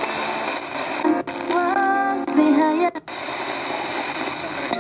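A Souness SNI-F100 portable radio's speaker playing the FM band while the tuning dial is turned: a steady hiss of static, with a brief snatch of singing from a station between about one and three seconds in, cut off by short dropouts as the dial moves past.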